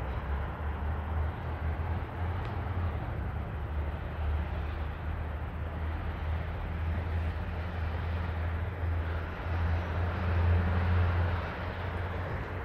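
A steady low engine drone under outdoor background noise, swelling a little about ten seconds in.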